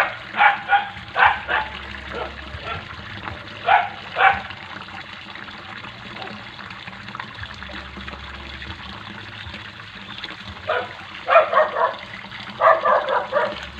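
A dog barking in short bursts, three bouts of several barks each, over steady running water.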